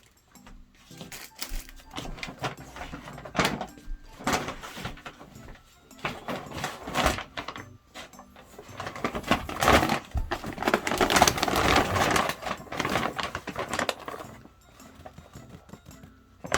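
Paper bag rustling and crinkling in irregular bursts as a cat plays in and around it, busiest and loudest in the second half.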